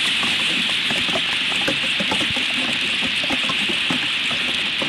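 Hailstones striking the branches and twigs of a stick nest in a hail storm: a dense, irregular patter of small ticks over a steady hiss.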